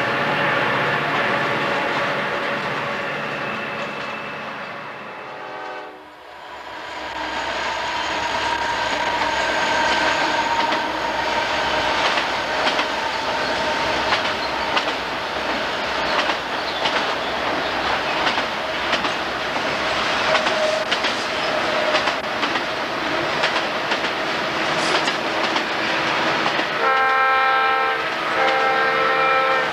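Diesel freight locomotives working hard under load with a steady engine drone that fades away, then freight cars rolling past with dense, rhythmic clicking of wheels over rail joints. Near the end a multi-chime locomotive horn sounds a few short blasts.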